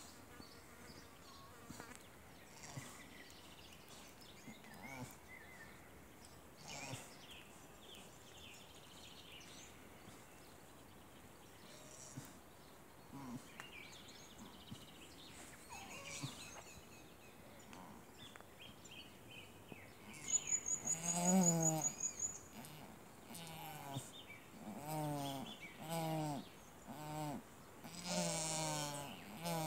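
Ewe in labour bleating: a series of deep, wavering bleats begins about two-thirds of the way in, the first one the loudest, then repeats every second or two. Before that there are only faint scattered rustles.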